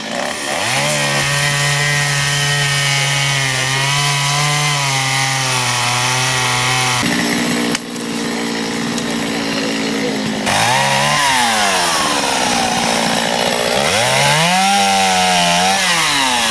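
Two-stroke chainsaw running under load, its engine pitch sagging and wavering as it cuts, then revving up and dropping back twice in the second half.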